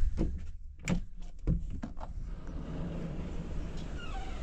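A sliding balcony door on a cruise-ship cabin being unlatched and slid open, with a few sharp clicks and knocks in the first two seconds. After that comes a steady rush of open-air noise over a low rumble.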